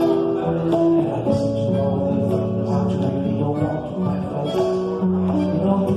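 A small band playing a song live: plucked guitar over sustained pitched notes, with short bright percussion hits keeping a regular beat.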